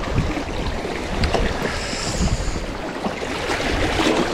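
Wind buffeting the microphone, a steady low rumble with a hissing haze and a few faint ticks.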